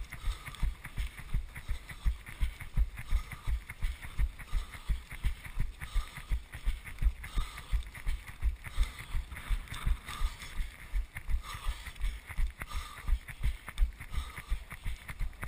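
A runner's footfalls at race pace, heard as steady thumps about three times a second as the body-worn GoPro jolts with each stride.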